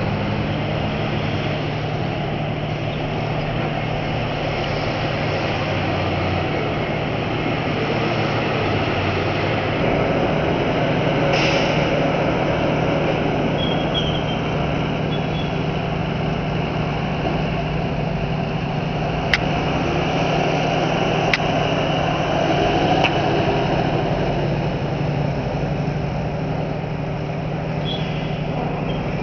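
Diesel engine of a port terminal tractor running steadily as it hauls a semi-trailer, with a continuous low drone. Two sharp clicks come about two-thirds of the way through.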